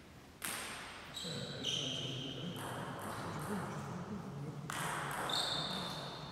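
Echoing sports-hall sounds of table tennis play: short knocks and brief high squeaks, starting suddenly about half a second in and coming again a few times, over voices in the hall.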